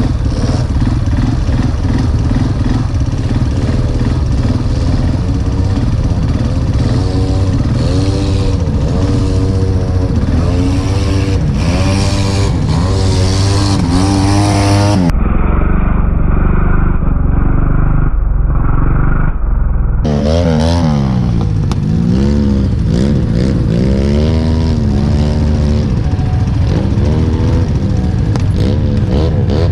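ATV engine revving up and down over and over, the throttle blipped about once a second, as a four-wheeler works in deep mud. For about five seconds midway the sound turns muffled, losing its top end.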